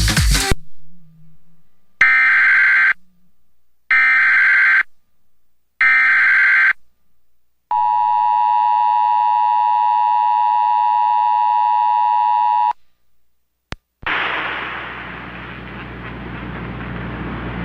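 Emergency Alert System alert over radio: three short digital SAME header bursts about two seconds apart, then a steady attention tone held for about five seconds that cuts off abruptly. After a click, a steady hiss of noise with a low hum takes over.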